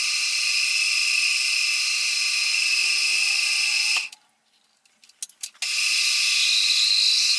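Milling machine spindle running with a steady high-pitched whine, a drill chuck in the spindle. It is switched off about four seconds in, a few short clicks follow, and it starts again a second and a half later.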